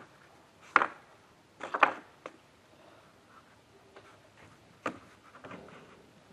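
A handful of separate sharp knocks and clunks, the loudest two in the first two seconds, with quiet between them.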